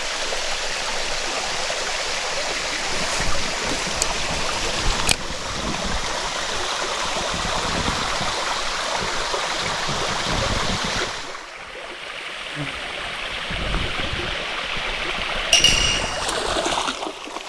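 Steady rush of flowing stream water, dipping quieter about eleven seconds in and then rising again, with a few sharp clicks.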